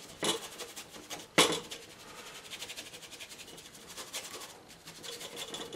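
Paintbrush scrubbing acrylic paint across rough, damp paper, a fine rapid rasp of bristles on the grainy surface. Two sharper knocks come about a third of a second and a second and a half in, the second the loudest.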